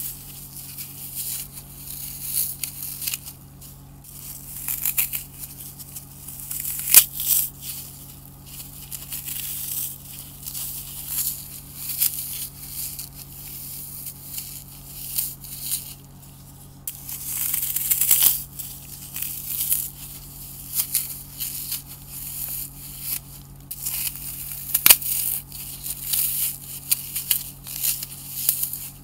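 Dry floral foam being crushed and crumbled between gloved fingers: a continuous fine crunching and crackling, with a few sharper snaps, the loudest about seven seconds in.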